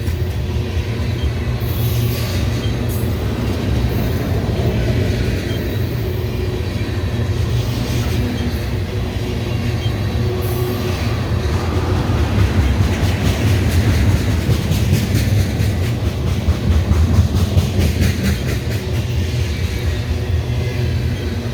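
A Canadian Pacific train's cars rolling past at track speed: a steady rumble with the clickety-clack of wheels over the rail, the clicking busiest in the second half.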